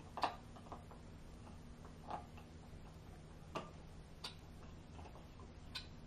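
Short, sharp clicks and snaps at irregular intervals, about one every second or so, over a faint steady low hum.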